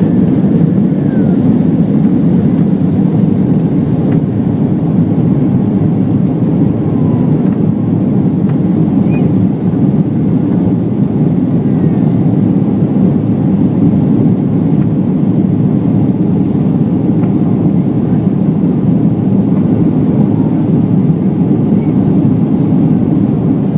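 Steady cabin noise of a Boeing 737-800 in flight: the deep, even rumble of its CFM56-7B jet engines and the rushing airflow, heard from inside the passenger cabin.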